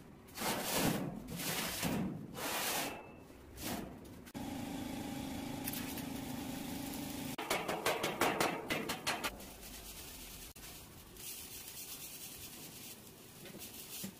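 Arc welding on steel plate: the crackling, sizzling arc of a stick welder, with a dense run of rapid crackles about halfway through and a steadier hiss afterward. A steady hum sounds for a few seconds before the crackling, and several broad rasping noises come in the first few seconds.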